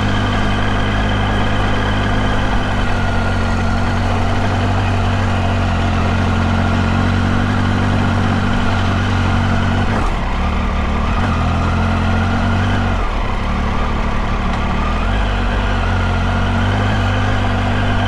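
Triumph Tiger 800's inline three-cylinder engine running steadily while the motorcycle is ridden at low road speed, the engine note shifting a little about halfway through.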